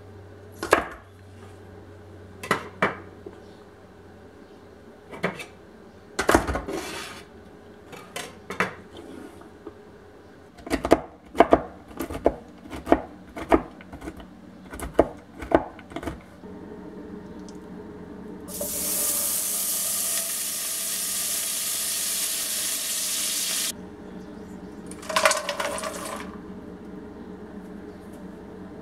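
Kitchen knife tapping on a wooden cutting board in quick runs of sharp strokes, first trimming green beans and then chopping cashews. After that comes a steady hiss lasting about five seconds, with a low hum underneath, and a short rustling burst near the end.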